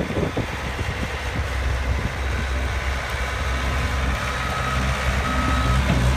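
Cat skid steer's diesel engine running under load as it plows snow, getting louder about a second and a half in. Near the end a backup alarm gives two long, even beeps.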